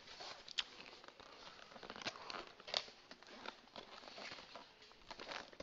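Cardboard router box being handled and opened: faint scattered rustling and scraping of the cardboard, with a few sharper ticks, the clearest about half a second in and just before three seconds.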